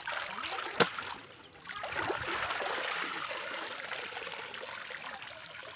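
Water pouring and trickling out through a woven bamboo basket of small fish as it is dipped and lifted to rinse the catch in shallow pond water. There is a single sharp knock a little under a second in.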